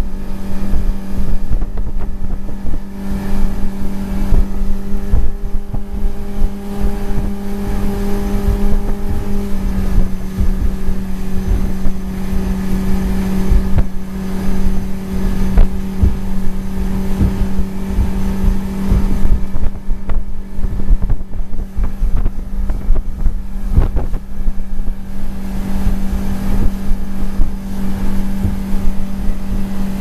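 A 50-horsepower outboard motor running at steady cruising speed, a constant drone whose pitch dips slightly about nine seconds in. Wind buffets the microphone throughout.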